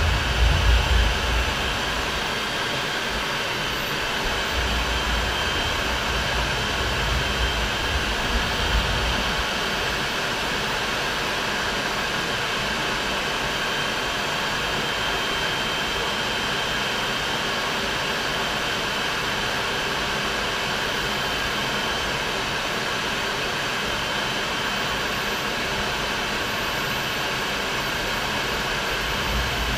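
Steady noise of a MiG-29 jet fighter in flight, its engines and the rushing airflow picked up by a camera mounted outside on the fuselage, with a faint steady high whine. Low gusts of wind buffet the microphone through the first several seconds.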